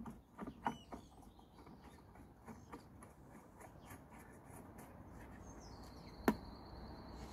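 Small clicks and taps of a metal mower blade and its retaining bolt being handled and fitted by hand, with one sharp click about six seconds in. A thin, steady high whistle sounds over the last two seconds.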